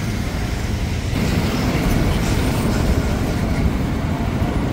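Motorcycle engines and road traffic running together as a steady rumble, which grows louder about a second in.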